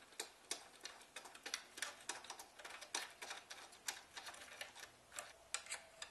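Quick, irregular clicks and taps of a metal bolt and washers being handled and turned in by hand to fasten a table leg.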